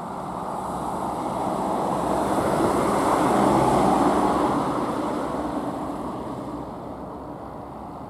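GAZelle City minibus (GAZ-A68R52) driving past on a snowy road, its engine and tyres growing louder to a peak about four seconds in, then fading as it moves away.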